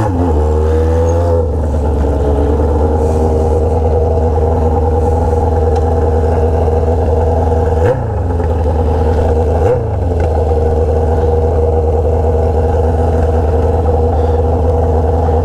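Yamaha XJ6 motorcycle with a straight-pipe Atalla exhaust (no silencer) idling loudly after rolling to a stop. The engine note drops and settles in the first second or so, and there are two brief throttle blips near the middle.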